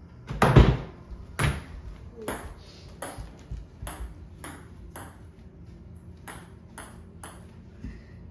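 A single hard knock about half a second in, then a celluloid ping pong ball bouncing with about eleven light, sharp pings, roughly one every half to one second.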